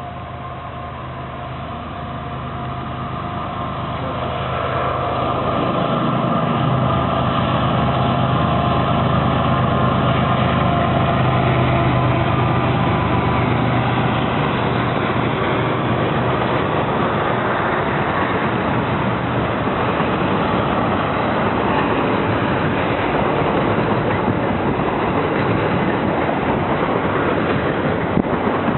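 A CP Rail diesel freight train approaching and passing close by. The locomotive's engine drone grows louder over the first six seconds or so and is strongest as the locomotive goes past. It then gives way to the steady noise of the freight cars rolling by.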